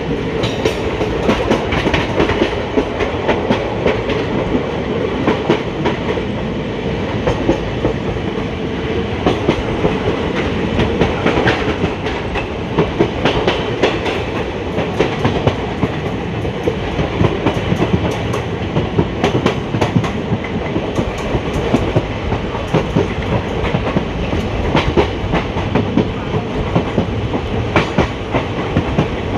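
Indian Railways ICF passenger coach running along the track, its wheels clattering in an irregular clickety-clack of sharp clicks over a steady rumble.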